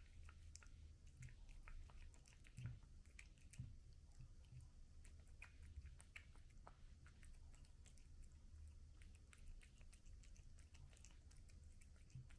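Faint sound of a cat chewing and eating its food: many small irregular clicks and crunches.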